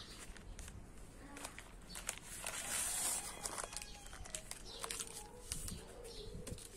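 Baking paper rustling and crinkling as hands roll and press a dough log wrapped inside it, with the loudest rustle about two to three seconds in.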